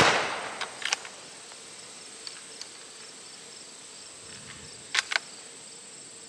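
The echoing tail of a 6.5 Creedmoor rifle shot dying away, followed by sharp metallic clicks of the bolt being worked about a second in and again near the end, with a steady insect chirring underneath.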